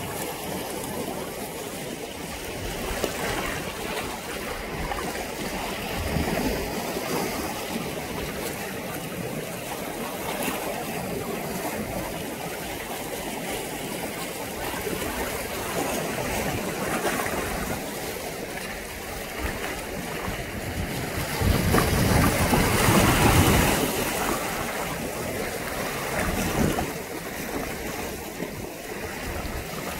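Choppy sea water washing and lapping, with wind blowing on the microphone; a louder rush of wind and water comes about two-thirds of the way through.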